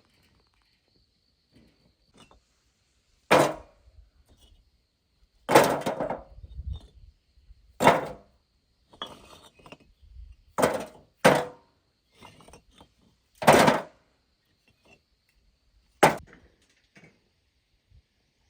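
Seven sharp strikes, irregularly spaced a second or two apart, each ringing briefly, like a hand tool hitting hard material.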